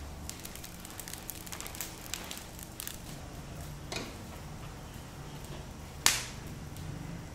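Charcoal fires under spit-roasting whole pigs crackling with many small pops, then a knock about four seconds in and a single loud sharp crack about six seconds in.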